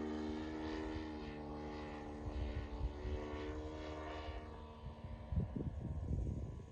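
The 3W-157 two-stroke petrol engine and propeller of a large RC model airplane in flight, a steady drone that fades in the second half as the plane draws away. Bursts of low rumble come and go underneath.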